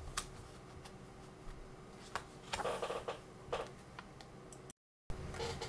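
Faint scattered clicks and short rustles from a hardcover picture book being held up and moved about, with a brief drop to dead silence about three-quarters through.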